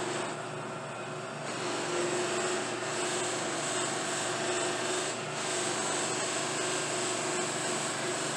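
Lathe-driven buffing wheels running steadily, with a briar pipe bowl rubbing against a spinning wheel as its dyed finish is buffed to an even colour. The sound grows a little louder about one and a half seconds in, then holds steady.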